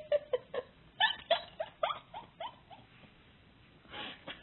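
Small dog whining in a quick run of short whimpers, each with a slight slide in pitch, after a few sharp clicks at the start.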